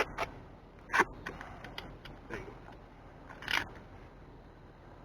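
A few short scrapes and clicks as an OMC Cobra lower shift cable is pulled and pushed through the gimbal housing, the loudest about a second in and again about three and a half seconds in.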